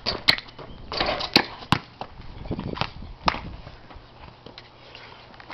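Basketball knocking against a backyard hoop's backboard and rim and bouncing on pavement: a string of sharp knocks and thuds, most of them in the first three and a half seconds.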